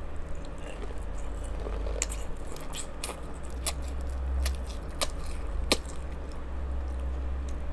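Close-miked eating of king crab legs with butter sauce: wet chewing with a run of sharp clicks and smacks. A fan or air conditioner hums low underneath.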